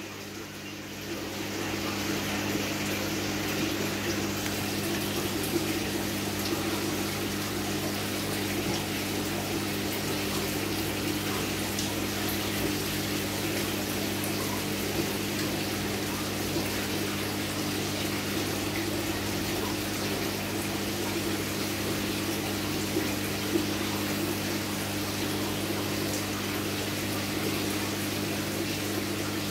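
Aquarium water pump running: a steady electrical hum under a constant rush of moving water.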